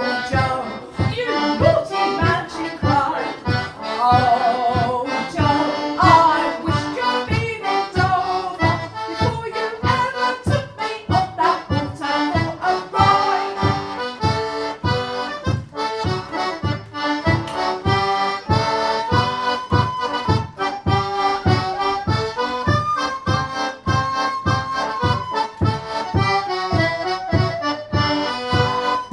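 Four-stop one-row melodeon playing a lively traditional dance tune, its melody carried over an even pulse of bass-and-chord strokes.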